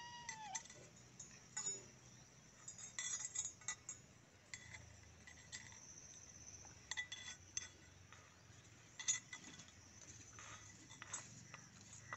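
Light metal clinks and scrapes of a small spoon against a miniature black iron paniyaram pan as the ragi paniyaram balls are turned and lifted out. The clinks come in scattered clusters, the sharpest about nine seconds in.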